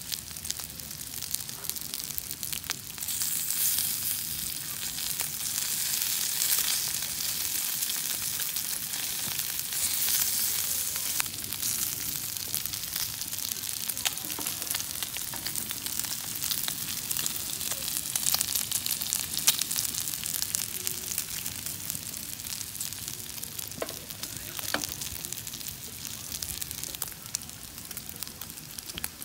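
Chicken strips sizzling on a flat griddle pan: a steady frying hiss full of small spitting pops, swelling louder a few times.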